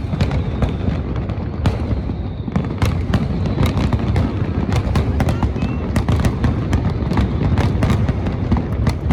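Fireworks display in a dense barrage: continuous low booming with many sharp cracks and crackles, several a second, without a break.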